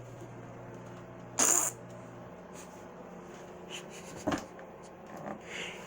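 Vocal sound effects made with the mouth: a short loud hissing burst about a second and a half in, a sharp click-like sound a little after four seconds, and fainter breathy puffs near the end.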